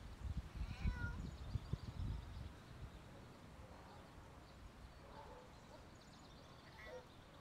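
A cat meows about a second in and again briefly near the end, over gusts of wind buffeting the microphone.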